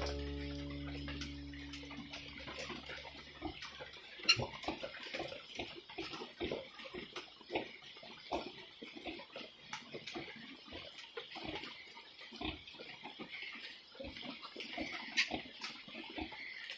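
Newborn Yorkshire-cross piglets, faint and close, with many short irregular clicks, rustles and grunts. Brief higher squeaks come about four seconds in and again near the end. The last of a piece of music fades out over the first few seconds.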